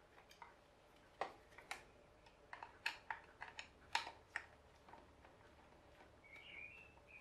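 A screwdriver clicking and tapping against the hair dryer's hard plastic housing and switch board as the parts are prised apart: an irregular run of sharp clicks over the first five seconds. A brief high squeak follows near the end.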